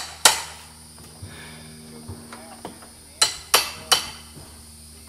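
Hammer blows striking wood during demolition salvage: one sharp blow just after the start, then three quick blows, about three a second, a little past three seconds in.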